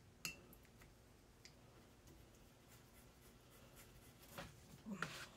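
Near silence with faint brushwork: a watercolour brush brushing and tapping, giving a few light clicks against the palette, one sharper click just after the start.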